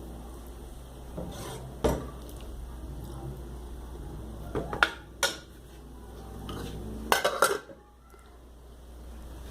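Pots, pans and metal utensils clattering: a sharp knock about two seconds in, a few more clinks around the middle, and a quick run of clatters near the end, over a steady low hum.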